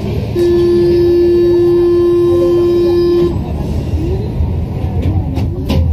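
Metro train horn sounding one steady note for about three seconds over the low rumble of the rubber-tyred train running through the tunnel, followed by a few sharp knocks near the end.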